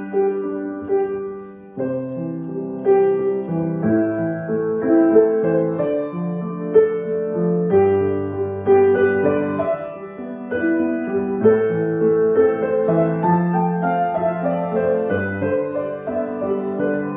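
Piano playing a melody over held chords and low bass notes, with a short lull about two seconds in before the next phrase begins.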